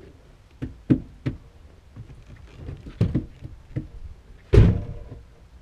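Footsteps on snow and a few knocks as someone gets into a Subaru Legacy, then the car door shut with one heavy thump about four and a half seconds in. The engine is not yet running.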